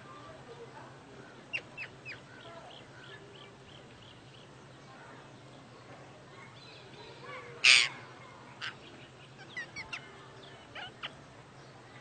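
Parakeet calls: scattered short chirps and squawks, with one loud harsh screech about two-thirds of the way through.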